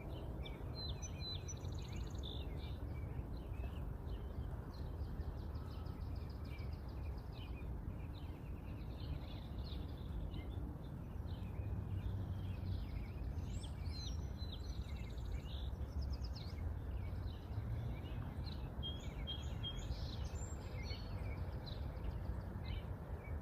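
Small birds chirping and trilling, many short calls over a steady low background rumble.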